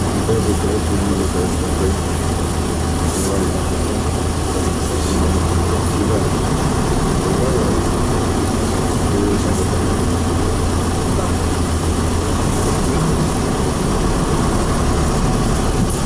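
Cabin noise of a PAZ-32054 bus under way: its petrol V8 engine drone mixed with road noise. The low engine note changes about twelve seconds in.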